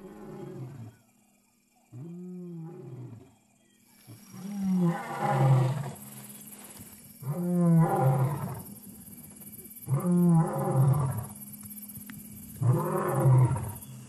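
A lion roaring: a series of six deep roars, one about every two and a half seconds, the later ones louder than the first two.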